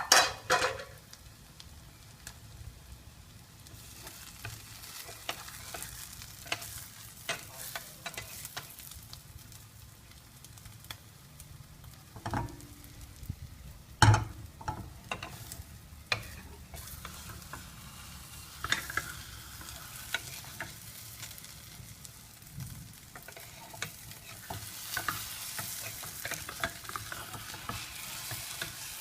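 Egg and onion frying in a pan, a steady sizzle with a utensil scraping and clicking against the pan. There are two sharp knocks, one right at the start and one about halfway, and the sizzle grows louder near the end.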